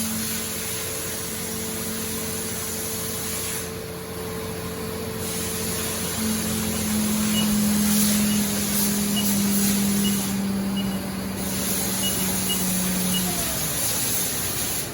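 Haas VF-5/40 vertical machining center's 15,000 RPM CAT 40 spindle spinning at high speed, a steady hum over a broad hiss. The hum steps down slightly in pitch about six seconds in and fades near the end.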